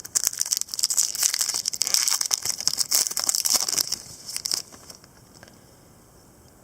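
Plastic trading-card pack wrapper crinkling as it is handled, a dense crackle that stops suddenly about four and a half seconds in.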